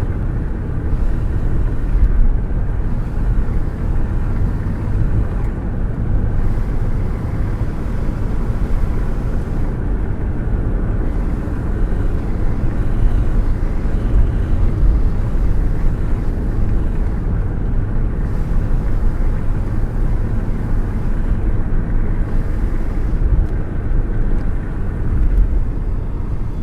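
Wind rushing past the open window of a car cruising at speed, with steady deep road and wind rumble and no distinct events.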